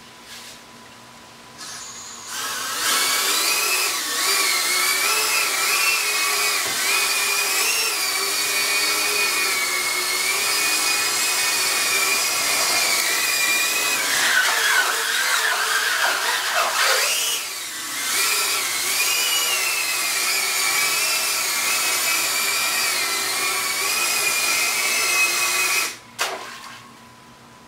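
Shendrones GeyserPhobe waterproof cinewhoop FPV drone, its motors and propellers whining as it drives across the water, the pitch wavering with throttle. The whine starts a couple of seconds in and cuts off near the end, with splashing water churning through it around the middle.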